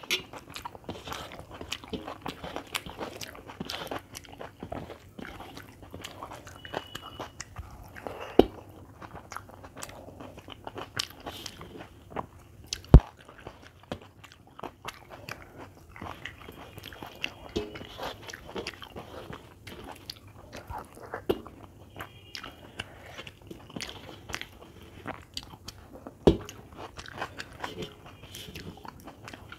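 A person eating by hand: chewing and mouth sounds, with soft scraping of fingers mixing rice on a metal plate. A few sharp clicks stand out.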